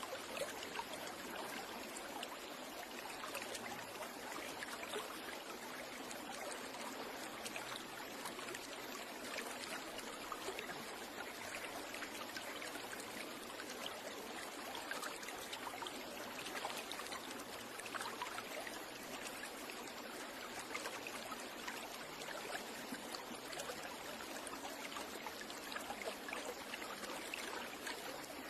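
Steady running water, a small stream trickling and splashing without a break.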